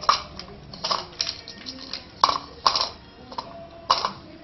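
Rottweiler puppy eating dry kibble from a bowl: a string of sharp clinks and knocks of food and muzzle against the dish at irregular intervals.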